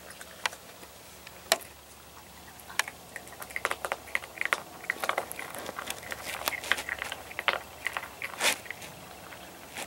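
A Virginia opossum chewing cat food. A few isolated sharp crunches are followed, from about three seconds in, by a dense run of quick, irregular crunching.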